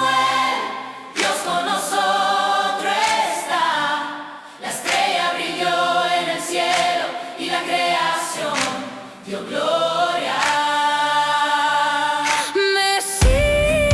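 Choir singing a cappella in phrases separated by short breaths. A low-pitched accompaniment enters just before the end.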